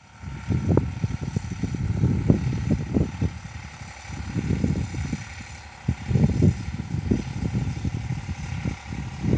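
Eicher 485 tractor's 45 hp diesel engine running steadily while pulling a seed drill across a field, sowing moong beans. Irregular gusts of wind buffet the microphone and are louder than the engine.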